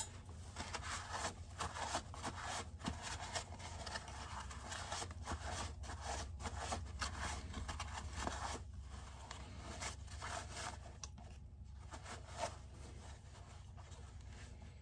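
Plastic chainsaw top cover being handled and rubbed: irregular short scratchy rubbing and scraping strokes, one after another.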